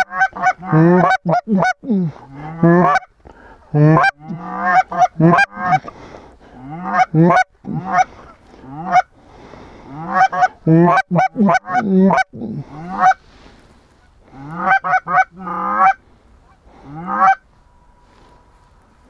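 Canada goose calls blown by hunters team calling: rapid runs of honks and clucks in repeated bursts with short breaks between them, and a pause near the end.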